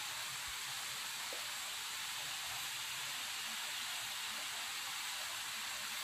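Steady, even hiss of falling water at a waterfall, with no change in level.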